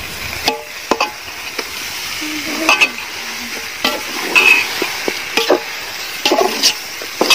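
Metal ladle stirring raw chicken pieces in a large metal pot, scraping and clinking against the pot's side several times over a steady sizzling hiss.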